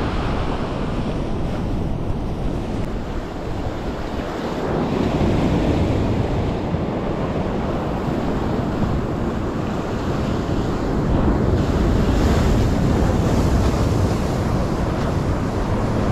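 Sea surf washing in, with wind buffeting the microphone; the noise swells about five seconds in and again later on.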